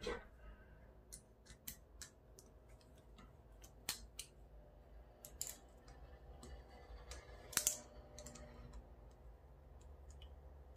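Faint, scattered small clicks and taps from a plastic inline cord switch being handled while its terminal screws are loosened, with one sharper click about seven and a half seconds in.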